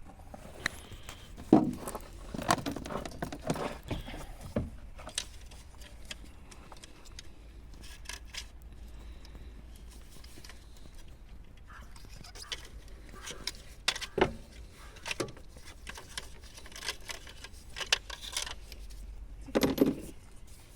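Irregular metallic clinks, knocks and rattles of hand tools and engine parts being handled during a cylinder head removal, with a few louder knocks about 1.5 s, 14 s and 20 s in, over a low steady hum.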